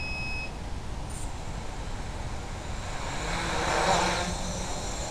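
FPV quadcopter's motors and propellers: a rushing noise over a low rumble that swells to its loudest about four seconds in as the quad lifts off. A short high beep sounds at the very start.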